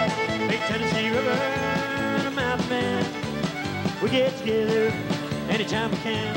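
Country band playing an instrumental passage: a sliding fiddle line over acoustic guitar and electric bass.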